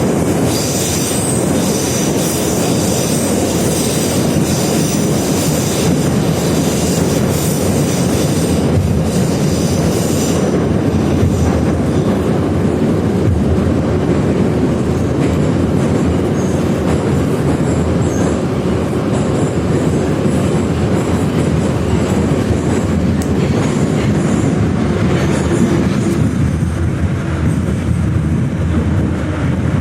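81-717.5M/714.5M 'Nomernoy' metro train running at speed, heard from inside the car: a steady heavy rumble of wheels and running gear. A high squeal is strong for roughly the first third and then fades.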